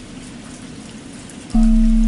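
Steady rain patter, then about one and a half seconds in a low bell is struck once and rings on with a long, steady hum that stands out loud over the rain.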